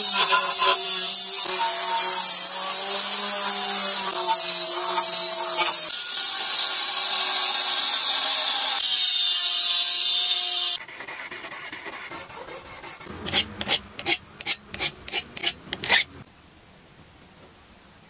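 Angle grinder grinding a bevel into a steel sword blade, a loud steady grind over the whine of the motor, which sags a little under load; it stops about eleven seconds in. After that come about a dozen quick scraping strokes over a few seconds.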